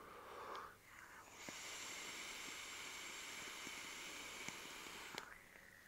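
A breathy exhale of vapour, then a steady, faint airy hiss as air is drawn through a vape atomizer for about four seconds, cutting off with a small click near the end.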